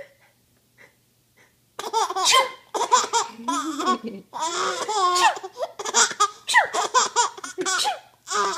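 A baby laughing in a string of repeated bursts, starting about two seconds in after a short quiet, set off by her mother's sneezing.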